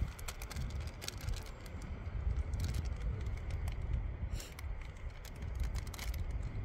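Wind buffeting the microphone as a steady low rumble, with scattered light clicks and rustles of small items being handled.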